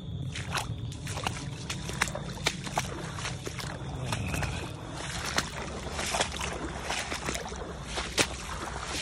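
Footsteps sloshing through rain-soaked mud and puddles, with irregular snaps and swishes of wet brush underfoot.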